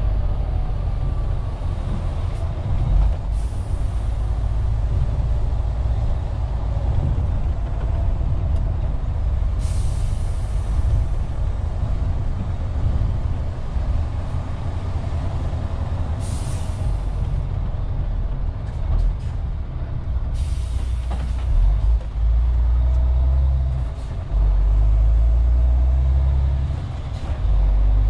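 Inside the cab of a MAN TGX 470 tractor unit on the move: the diesel engine and road noise run as a heavy rumble, broken several times by short hisses of compressed air from the truck's air brakes.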